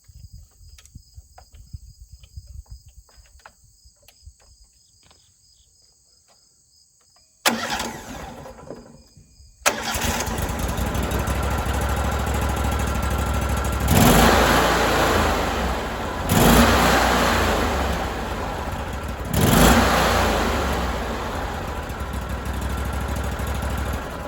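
Sawmill's air-cooled two-cylinder engine cranking: it fires briefly about seven seconds in and dies, then starts a couple of seconds later and runs steadily, revved up three times. It is run to blow leftover mouse-nest debris out of the cylinder cooling fins.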